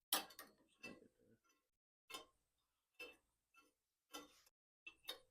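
Light clicks and ticks of metal hand tools, a few sharp ones in small clusters, roughly one a second.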